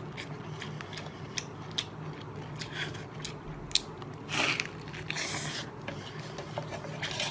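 Mouth crunching and chewing through a mantis shrimp's shell, with a run of sharp cracks and crackles and a few longer crunches.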